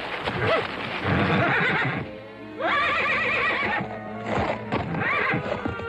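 Horse neighing with a long wavering whinny about two and a half seconds in, and hooves thudding on dirt as it spooks and bucks, over dramatic background music.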